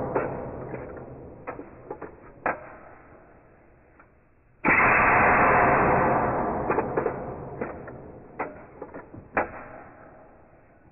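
FX Impact PCP air rifle fired once about halfway through: a sudden loud report that fades away slowly over several seconds. The tail of an earlier shot is fading at the start, and light clicks and knocks fall between the shots.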